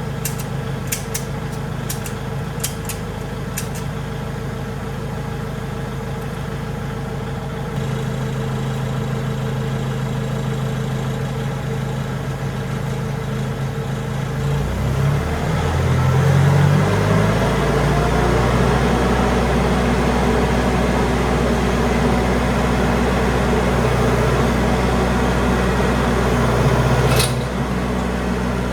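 Tractor engine idling, then revved up about halfway through and held at a higher speed, with a few clicks early on and a sharp click near the end as it drops back.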